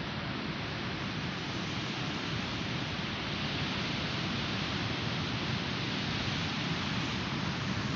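Surf breaking on a sandy beach: a steady, even wash of wave noise.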